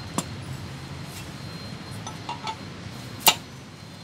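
Metal gear being fitted onto its shaft in an Ape auto gearbox's aluminium casing: a few light metallic clicks, then one sharp, ringing metal clink about three seconds in.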